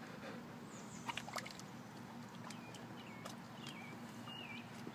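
Shallow lake water sloshing and lapping gently around a wading dog, with a few small splashes about a second in.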